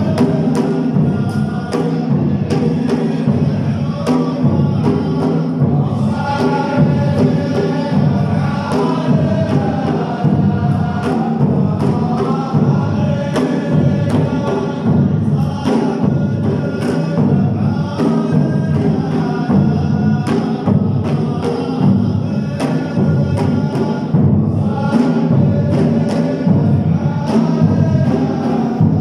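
Male chorus chanting a sung poem together over a steady beat of hand drums, the music of the Saudi ardah sword dance.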